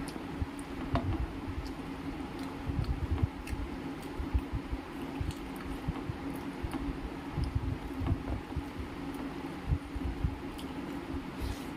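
Fingers mashing and mixing rice with curry on a steel plate: soft wet squishing with scattered light clicks, over a steady low hum.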